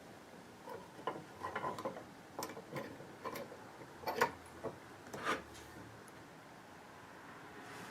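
Scattered light clicks and taps of small hard objects being handled, about a dozen at uneven intervals, stopping after about five and a half seconds; a faint low hum creeps in near the end.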